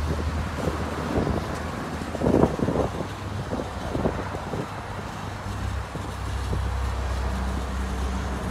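Steady low machine hum with wind noise on the microphone, loudest in a short gust about two seconds in.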